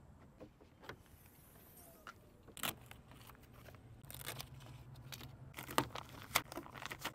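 A fabric protective car cover being handled and pulled off a car's hood: rustling and handling noises with scattered sharp clicks, including two loud snaps near the end.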